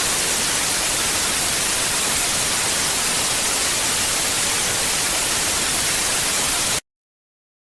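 Loud, steady burst of static hiss, about seven seconds long, that cuts off abruptly near the end.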